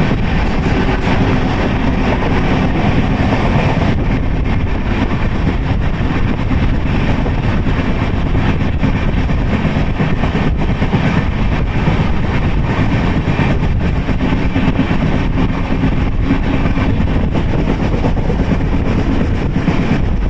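Passenger express train running at speed, heard from on board: a steady rumble of wheels on the rails with rushing air.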